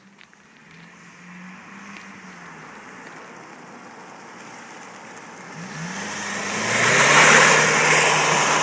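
BMW 1 Series (E87) diesel driving past. A quiet engine tone rises in pitch about five and a half seconds in as the car accelerates, and a loud turbo hiss swells over it and stays strong to the end.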